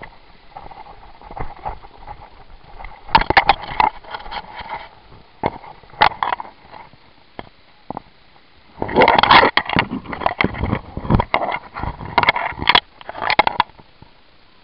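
Irregular bursts of scuffing, rustling and knocking from a crouching player moving on dry dirt and brush, with clothing and gear rubbing close to the microphone. The noisiest stretches come in the middle and near the end.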